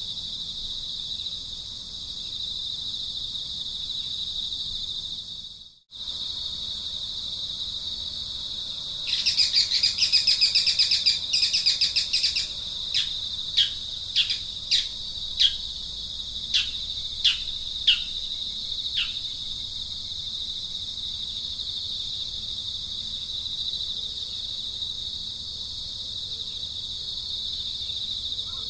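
Steady high-pitched drone of insects, briefly cut off near six seconds. From about nine to twelve seconds there is a loud, rapid rattling buzz, followed by about ten short bird calls, each sliding downward in pitch, spaced unevenly over the next several seconds.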